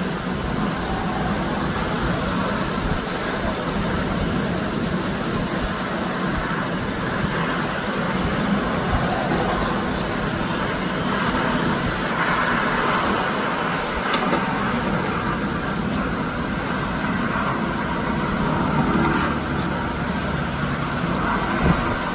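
Rainstorm: steady, heavy rain with a low rumble underneath and a few sharp ticks.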